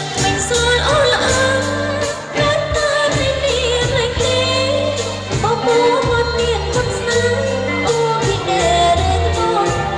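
Live Khmer pop band at full volume: a woman sings into a microphone over electronic keyboard, guitar, a held bass line and a steady beat.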